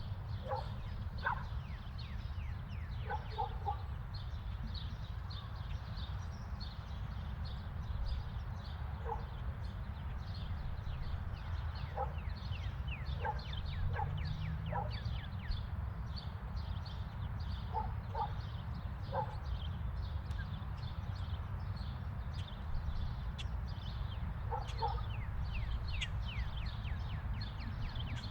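Outdoor ambience: many small birds chirping in quick short notes over a steady low rumble, with short lower animal calls in ones and pairs every few seconds.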